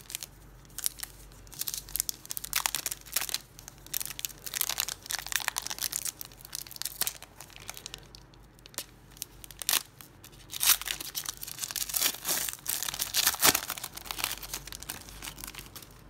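Foil Panini Prizm football-card pack torn open and crinkled in the hands as the cards are pulled out, crackling in clusters with a short lull midway.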